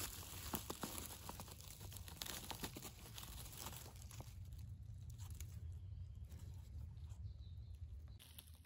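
Dry leaf litter and pine needles crackling and rustling as a hand digs around a porcino mushroom and pulls it out of the forest floor. The crackles are busiest in the first few seconds and thin out after.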